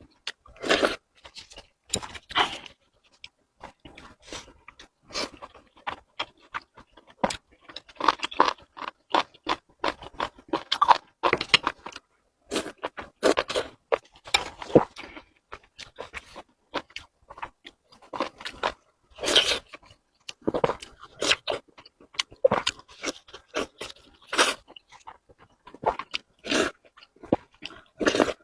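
Close-miked eating sounds: a person chewing and crunching food, with wet mouth smacks coming irregularly and short pauses between bites.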